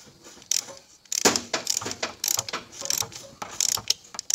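Ratcheting wrench clicking in short runs of quick strokes as a bolt is turned into the crankshaft snout. The clicking starts about half a second in and grows louder about a second in.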